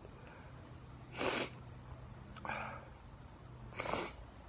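A man sniffling while crying: two sharp sniffs about two and a half seconds apart, with a softer breath between them.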